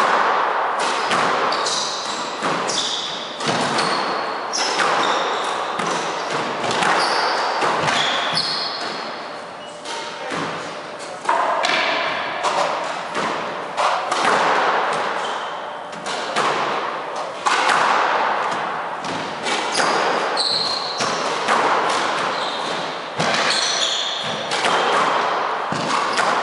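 Squash ball being struck and hitting the court walls, with repeated echoing thuds, and rubber-soled shoes squeaking in short high chirps on the wooden court floor.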